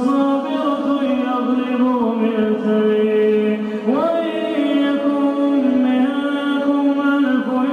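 A man's voice reciting the Quran in a slow melodic chant, holding long drawn-out notes. A new phrase begins about four seconds in with an upward slide in pitch.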